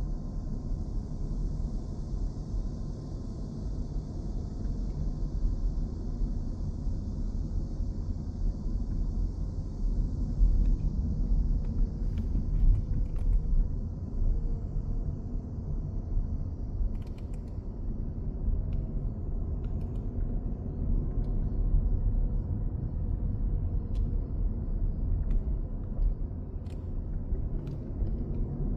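Outdoor ambience dominated by a low, steady rumble, with a high hiss that fades out about halfway through and scattered short clicks later on.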